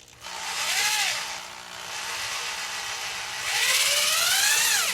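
Power drill driving a length of threaded rod, its motor whining up in speed and sagging back twice with a steadier stretch in between, winding down at the end. The rod is not going in easily.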